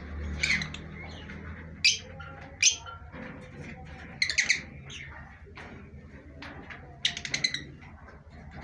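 Pet parrots calling: short, sharp, high chirps and squawks, with a cluster of quick calls about four seconds in and another about seven seconds in, over a low steady hum.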